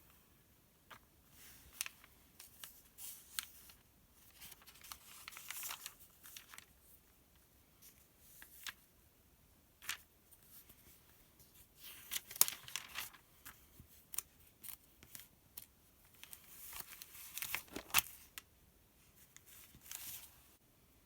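Crisp paper rustling as the glossy pages of a printed sales circular are handled and turned, in irregular swishes with sharp little clicks and taps between them, loudest about twelve and eighteen seconds in.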